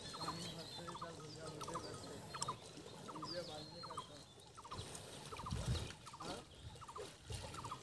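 Ducks calling on a pond: short rapid clusters of clucking notes, repeating about every two-thirds of a second, with higher bird chirps over them. A brief low rumble comes about five and a half seconds in.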